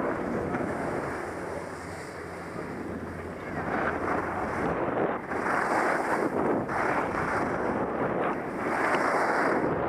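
Wind rushing over a skier's camera microphone, mixed with skis hissing and scraping over chopped-up packed snow. It swells in several surges from about a third of the way in and is loudest near the end.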